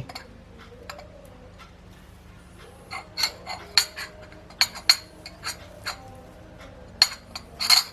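Metal cutlery clinking and tapping against a dish as grated kencur is moved onto a cloth: a run of light clinks about three seconds in, and another near the end.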